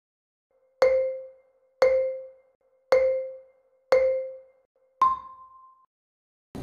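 Quiz countdown timer sound effect: four short tones at one pitch, about a second apart, then a fifth, higher tone. Each one dies away quickly.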